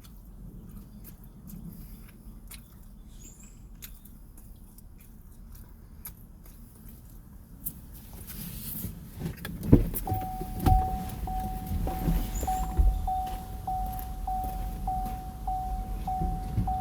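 Sounds inside a car: faint clicks, then a low rumble building about 8 seconds in, with a sharp thump. After the thump a car's warning chime starts ringing steadily, about two dings a second, over the low rumble.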